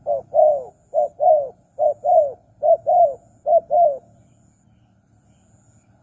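Spotted dove cooing: four quick pairs of notes, each a short note followed by a longer arched one, stopping about four seconds in.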